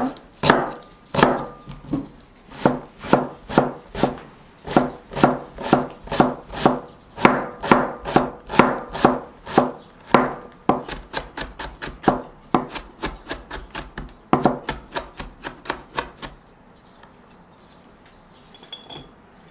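Chef's knife chopping onion on a plastic cutting board: a steady run of knocks, about three a second, quickening to four or five a second after about ten seconds, then stopping about three seconds before the end.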